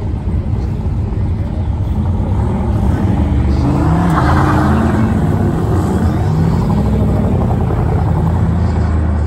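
Pickup truck engines running under load, one revving and pulling away with its pitch rising and dropping several times over a steady low rumble, loudest about four seconds in.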